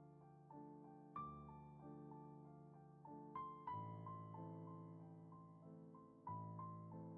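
Quiet, slow piano music: gentle chords and single notes struck every second or two and left to ring.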